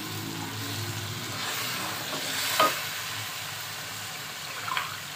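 Water poured from a glass into a hot pot of chicken and potato curry, sizzling as it hits the oil while a wooden spoon stirs it. The pouring fades after about two seconds, and there is a single knock about two and a half seconds in.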